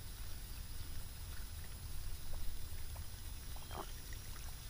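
Steady low wind rumble on the microphone, with a few faint ticks from a baitcasting reel being cranked to retrieve a topwater lure.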